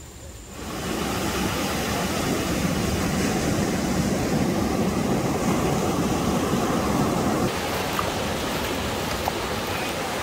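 Steady rushing noise with no pitch to it, setting in abruptly about half a second in; its highest hiss drops away a little after seven seconds.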